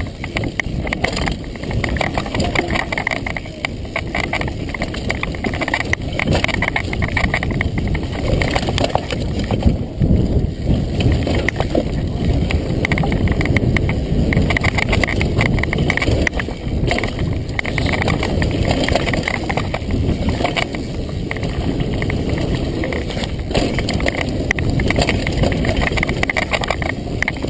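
Mountain bike ridden fast down a dirt forest trail: tyres rumbling over the ground and the bike rattling over bumps, without a break.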